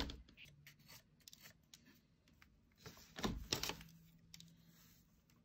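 Handling sounds of a carving knife and a small carved wooden part over paper: soft knocks, clicks and rustles, one cluster at the start and a louder one about three seconds in.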